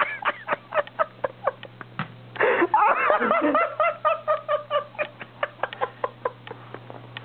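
Men laughing hard in rapid, breathy pulses about four or five a second, with a stronger pitched fit of laughter about two and a half seconds in.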